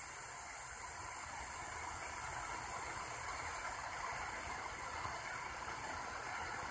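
Steady faint hiss of static from an XHDATA D-808 portable receiver tuned to the VHF air band, with no transmission coming through on the frequency.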